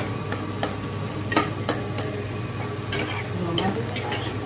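A metal spatula stirring vegetables as they fry in oil in a pan, with a steady sizzle and several sharp clicks of the spatula against the pan.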